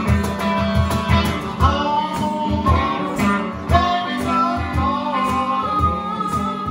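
Live blues band: a harmonica played into a microphone wails with bending notes, ending on a long held note, over a semi-hollow electric guitar and a steady cajon beat.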